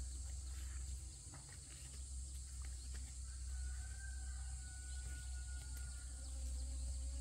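Outdoor field ambience: a steady low rumble and a steady high hiss, with a faint thin whistle held for about three seconds in the middle and a few soft ticks.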